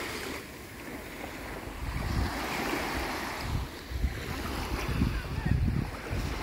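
Small waves lapping and washing onto a sandy beach, the wash swelling and ebbing. Wind buffets the microphone in low gusts from about two seconds in.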